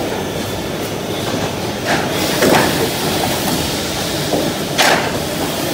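Tissue paper converting machinery of an automatic maxi roll production line running, a steady mechanical rumble and clatter, with a few short sharp noises about two seconds in and again near the end.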